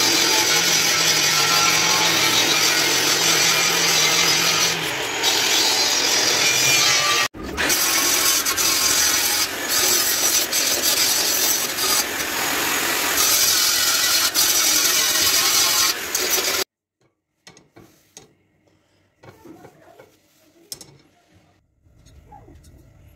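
Angle grinder with a sanding disc running against a steel knife blade, a loud, steady grinding hiss. After a break about seven seconds in, grinding on steel goes on with a few short dips, then cuts off about seventeen seconds in, leaving only faint small sounds.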